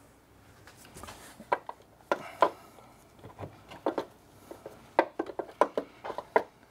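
Irregular light knocks and clunks as a BMW X3 E83 drive shaft, its flange bolts removed, is gripped and wiggled by hand to work it free.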